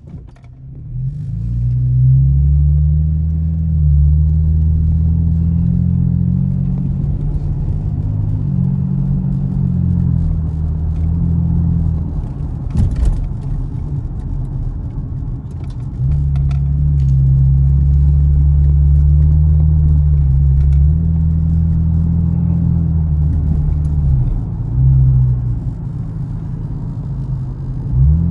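A 500 hp Chevrolet Camaro's engine and exhaust running under way with a deep, steady rumble. It swells as the car pulls away about a second in, eases off for a few seconds midway, then holds steady again and picks up near the end. A single sharp knock comes about halfway through.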